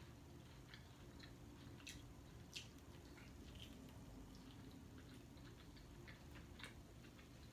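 Faint, irregular wet mouth clicks and chewing of someone eating, over a steady low background hum.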